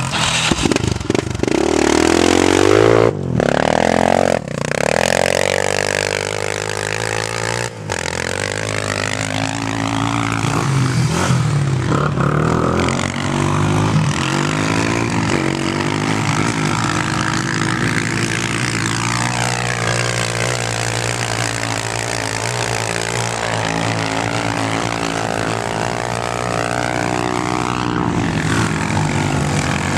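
ATV (quad bike) engines revving on a sand dune, their pitch rising and falling again and again with the throttle, over a steadier low engine drone.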